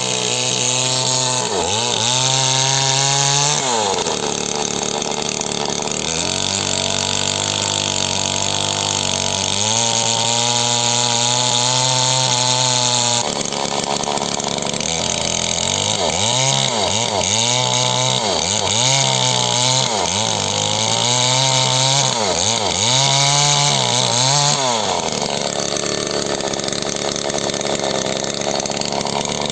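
Small chainsaw cutting wood. Its engine revs up and drops back over and over, holds at high speed for several seconds, then settles toward idle near the end.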